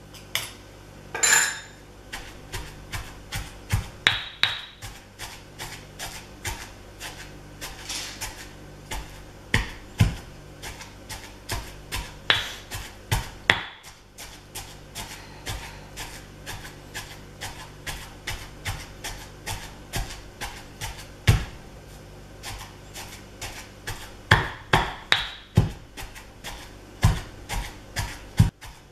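Granite pestle pounding fried red chilli and coconut sambol in a granite mortar: a quick, steady run of dull stone thuds with a crunch of the coarse mixture being crushed.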